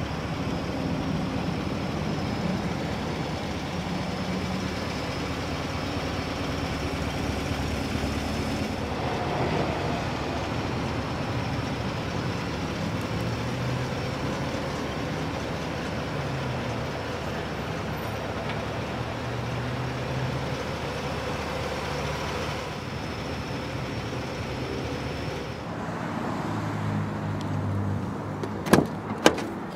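Steady motor-vehicle noise with a low hum that shifts in pitch now and then. Near the end, two sharp clicks as an SUV's door handle is pulled and the door latch releases.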